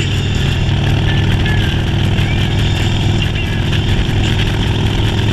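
Motorcycle engine running at a steady speed, with no rise or fall in pitch.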